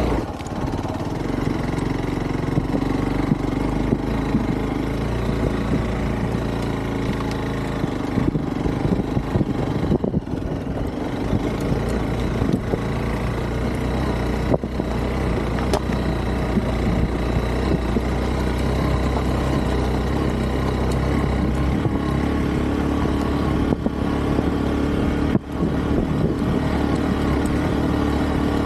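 Hero Xpulse 200 4V's single-cylinder engine running at low revs as the motorcycle crawls over a rocky trail. The engine note dips briefly a few times, and there are scattered knocks as the bike rides over stones.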